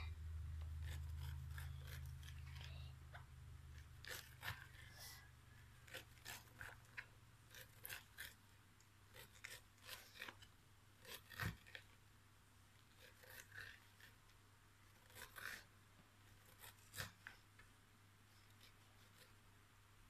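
A knife slicing kernels off a fresh corn cob into a stainless steel bowl: faint, irregular crisp cuts and scrapes, one louder knock about halfway through.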